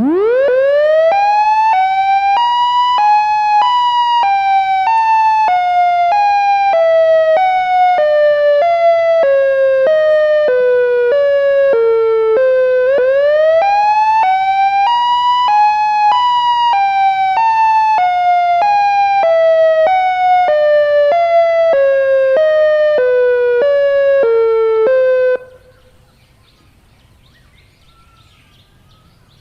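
Synthesized Federal Signal siren sounding an alternate wail in its normal, unglitched form. It winds up, then switches between two tones about twice a second while the whole pitch slowly sinks. It sweeps up and sinks again a second time, then cuts off suddenly a few seconds before the end.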